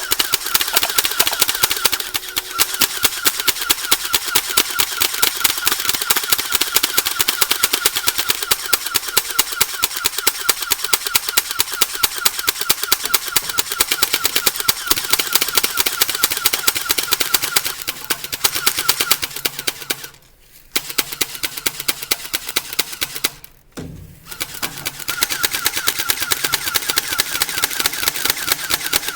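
Airsoft guns firing rapid, full-auto strings: a fast, steady rattle of shots with many shots a second, breaking off briefly twice in the last third.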